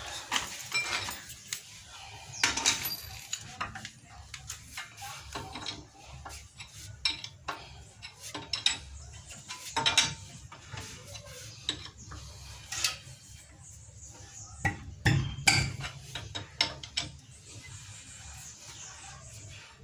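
Metal tools and parts clinking and knocking at irregular intervals during work on a car's front wheel and brake.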